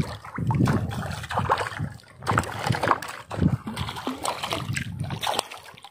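Irregular water splashing and sloshing in shallow water, coming in uneven bursts.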